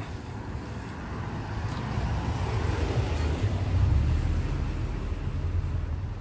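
A motor vehicle passing nearby out of sight on the street, its rumble growing louder to a peak about four seconds in and then fading.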